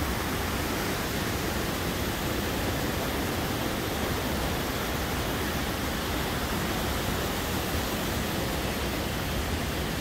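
Fast-flowing river water rushing over and below a waterfall: a steady, unbroken rush of water noise.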